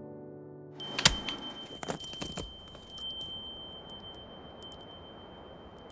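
A wind chime ringing, starting about a second in: several light strikes at uneven intervals, each leaving a clear high bell tone that rings on and fades.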